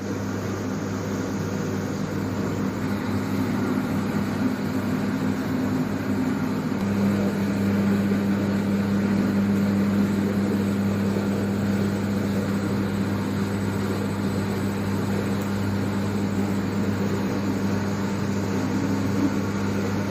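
Electric motor of an automatic bakpao (steamed bun) forming machine running with a steady hum; the hum gets a little stronger about seven seconds in.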